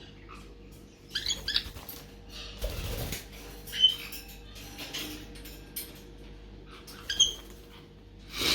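Black-headed caique chicks giving a few short, high squeaky calls, with a soft thud about three seconds in.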